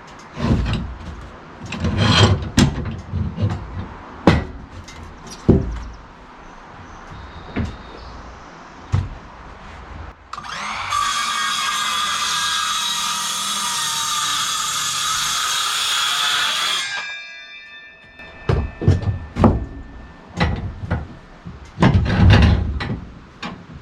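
Wooden boards knocking and clattering as they are handled, with a power saw running through a cut for about six seconds in the middle, stopping suddenly.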